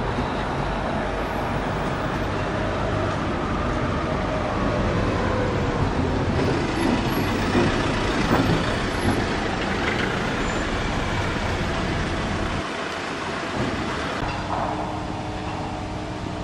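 Street traffic: a delivery van's engine runs as it drives close past, over steady road noise and rumble. The sound is loudest as the van goes by, about halfway through.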